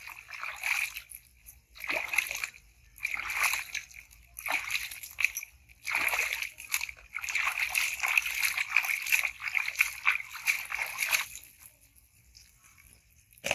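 Water splashing and sloshing in a plastic tub as a baby monkey is washed by hand. It comes in repeated bursts, runs longer and unbroken from about seven seconds in, and stops near the end.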